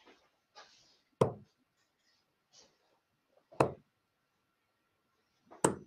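Three steel-tip darts thudding one after another into a bristle dartboard, about two and a half seconds apart.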